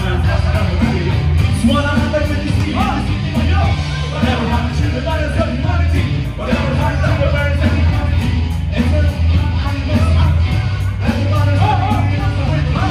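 Live rock band playing, with electric guitars, bass and drums, and a voice singing over a steady, heavy bass line.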